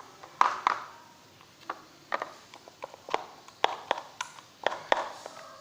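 Clear jelly slime being handled and squeezed, giving a series of irregular sticky clicks and pops, about a dozen, the loudest about half a second in and near the end.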